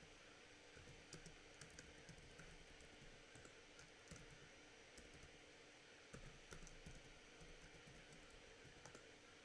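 Faint typing on a computer keyboard, key clicks coming in short irregular runs.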